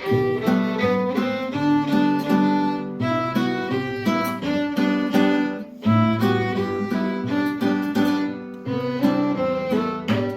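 Instrumental music with a melody of held, pitched notes in short phrases, pausing briefly about three and six seconds in.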